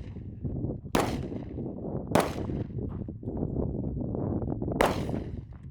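Three gunshots, spaced unevenly: one about a second in, the next about a second later, and the last about two and a half seconds after that. A steady low rumble fills the gaps between them.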